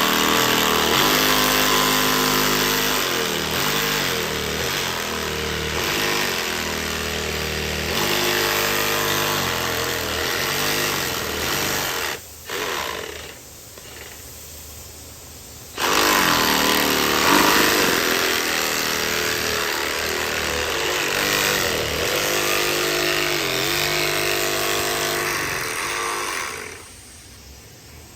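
A power tool running hard in two long runs, its motor pitch shifting under load. It stops about twelve seconds in, gives a short burst, goes quiet for a few seconds, then starts again and runs until shortly before the end.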